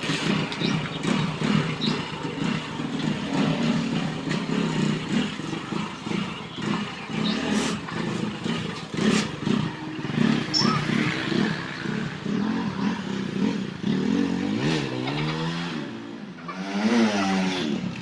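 Air-cooled single-cylinder motorcycle engine running, then revved up and down several times near the end as the rider pulls away, on a test ride after new clutch linings were fitted.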